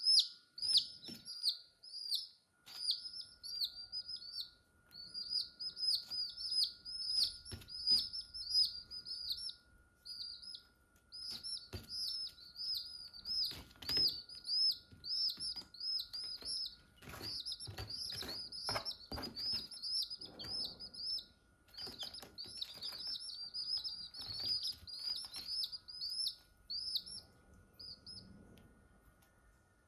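Day-old chicks peeping: quick runs of high, downward-sliding peeps, several a second, pausing briefly about ten seconds in and thinning out near the end. A few soft taps and rustles come through the middle.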